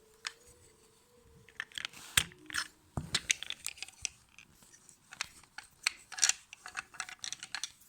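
A screwdriver prying open a toy car's body, giving scattered clicks, scrapes and creaks with two sharper snaps about two and three seconds in.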